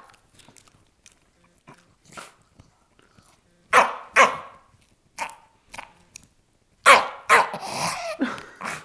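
Jack Russell terrier barking and growling in short bursts while guarding a bone: two sharp barks about four seconds in, a few small ones after, then a louder run near the end that trails off into a longer sound dropping in pitch.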